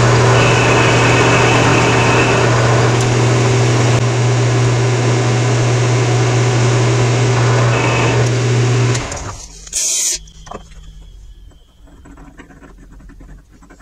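Metal lathe running steadily as it cuts an internal thread: a loud machine whir over a low hum. It stops about nine seconds in, then comes a brief hiss, and after that only faint ticks of metal parts being handled.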